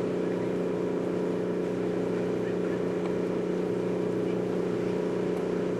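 Steady mechanical hum of a standing passenger train idling, an even drone of several low tones that does not change.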